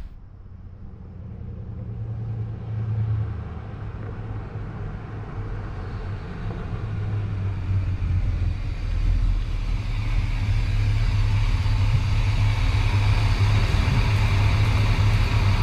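1968 Chevrolet C10 pickup's 350 small-block V8 running with a low rumble as the truck drives up, growing louder over the first ten seconds and then holding steady.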